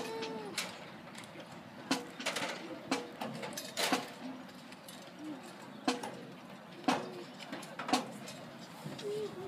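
A drum tick keeping marching time for a band moving into position: sharp clicks about once a second, over faint crowd chatter.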